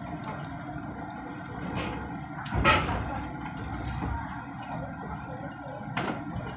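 Steady engine and road rumble heard from inside a moving vehicle. A sharp knock about two and a half seconds in, with a smaller click near the end.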